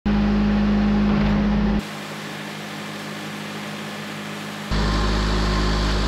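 Wood-Mizer portable sawmill running with a steady mechanical hum. About two seconds in, the sound drops abruptly to a quieter hiss, and the running hum returns just as abruptly shortly before five seconds.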